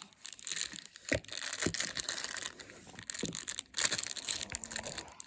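Crinkling and tearing of plastic packaging as a pocket knife is unwrapped by hand, in irregular crackling bursts with a few sharper snaps.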